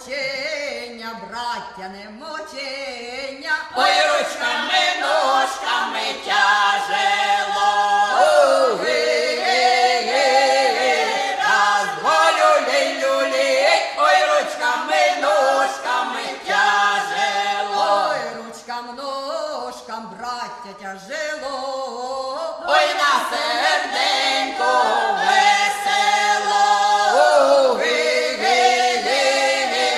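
Unaccompanied folk choir singing a Ukrainian song in lead-and-response style: a single voice opens the verse, and the full group joins about four seconds in. The same pattern comes again, with the solo line around 18 seconds in and the group coming back in about 23 seconds in.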